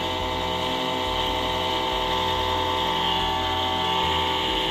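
12 V DC diaphragm spray pump running dry off a battery with a steady, even hum and whine. Its pump head is freshly rebuilt with a new repair kit, and it runs very smooth, like a new motor.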